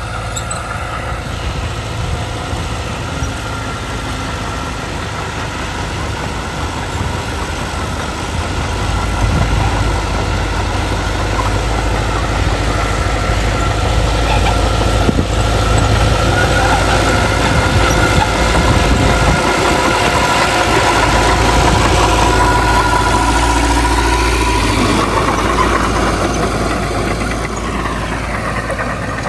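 Diesel engine of heavy earthmoving machinery running steadily. It grows louder about a third of the way in and eases off near the end.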